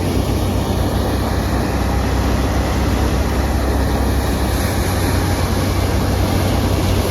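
John Deere tractor engine running steadily, a loud even drone with a deep hum.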